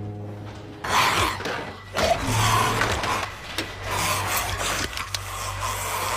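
Rasping, scraping sound effects of a zombie dragging itself across a floor, in rough uneven surges over a low steady hum.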